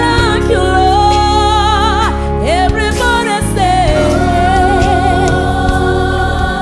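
Gospel singing with band accompaniment: a singer holding long, wavering notes over a steady bass.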